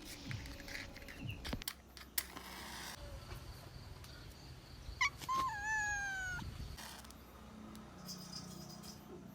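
A cat meows: a short call, then one longer call that falls slowly in pitch, about five seconds in.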